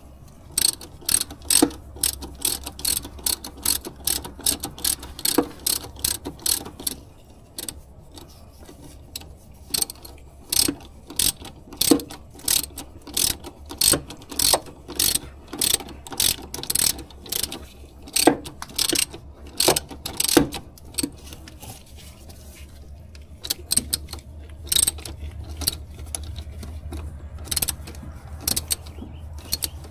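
Hand ratchet wrench clicking in quick runs of strokes with short pauses, tightening bolts.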